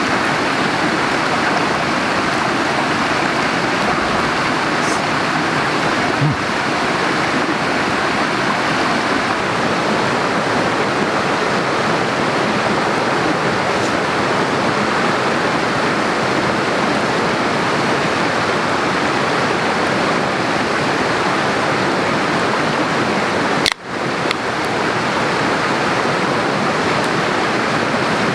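Steady, loud rush of water, an even hiss without pitch, with one sudden brief break about 24 seconds in.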